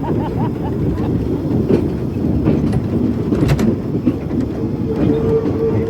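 Heritage railway carriage running along the track: a steady rumble with a few sharp clicks from the wheels, and a brief steady tone near the end.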